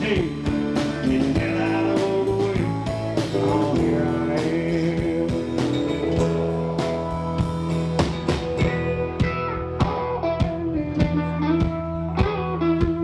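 Live band playing an instrumental passage: guitar lead over bass and a drum kit keeping a steady beat.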